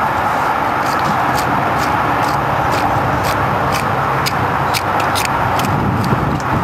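Hand trowel scraping and clicking in stony soil, a string of sharp ticks, mostly from about one to six seconds in, over a loud steady rushing noise.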